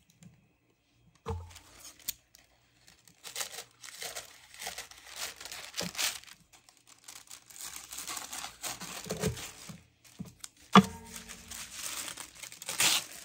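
Thin sewing-pattern tissue paper rustling and crinkling as it is handled and cut with scissors, in repeated bursts. A sharp knock about 11 seconds in is the loudest sound.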